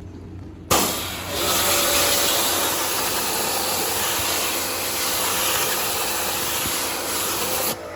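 A high-pressure jet comes on with a sudden loud hiss about a second in and runs steadily with a faint motor hum beneath, then cuts off sharply near the end.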